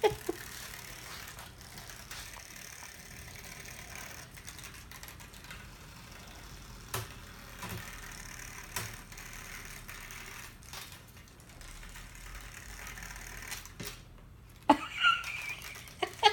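Small geared motor of a battery-operated butterfly cat toy whirring steadily, with scattered light clicks and a louder knock near the end.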